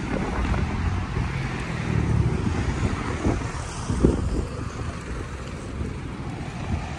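Wind buffeting the microphone in a low, uneven rumble, with a stronger buffet about four seconds in, over the hiss of road traffic.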